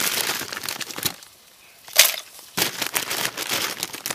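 Plastic bag of dry pasta crinkling in bursts as it is shaken and tipped into a pot, with a sharp snap about two seconds in.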